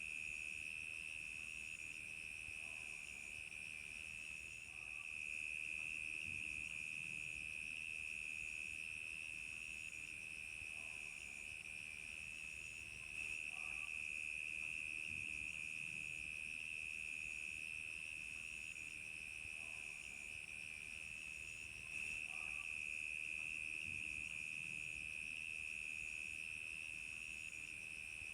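Crickets chirping in a steady night chorus: one continuous high trill, with a higher chirp pulsing about once a second above it. The level steps up slightly every nine seconds or so.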